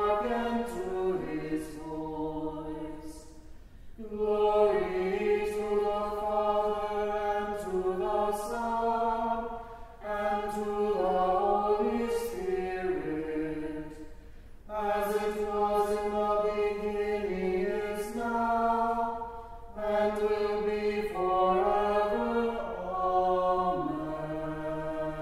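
Choir singing in phrases of about four to six seconds, with short breaks between phrases.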